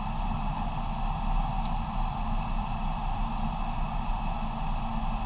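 Steady rush of airflow and hum inside an airliner's cockpit in flight, holding level throughout.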